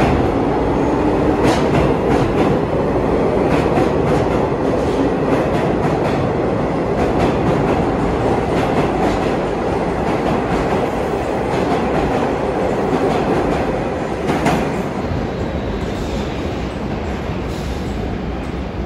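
A vintage New York City subway train pulling out of the station, its cars rolling past the platform with a loud, steady running noise and wheels clicking over rail joints. The sound eases a little near the end as the train draws away into the tunnel.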